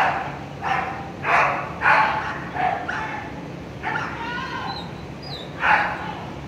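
A dog barking repeatedly: a quick run of short barks about every half second, then a longer, higher call about four seconds in and one more bark near the end.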